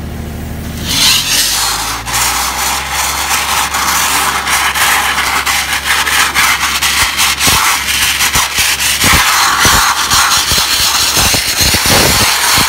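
Dustless (wet abrasive) blaster spraying water and grit from a hand nozzle onto a steel car wheel: a loud, steady hiss that starts about a second in, with rapid crackling as the grit strikes the metal, over a low machine hum.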